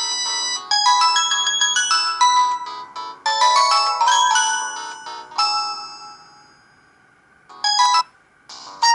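Samsung GT-E1175T mobile phone ringtones: a synthesized electronic melody of quick, bright notes. About five and a half seconds in, a held chord fades away, then a short burst of notes follows near the end.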